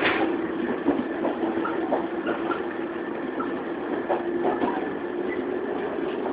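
Running sound of a resistance-controlled JR 115 series electric multiple unit, heard inside a motor car. The traction motors give a steady hum that creeps slightly higher in pitch after the middle, over the rumble of the wheels, with scattered light clicks and knocks.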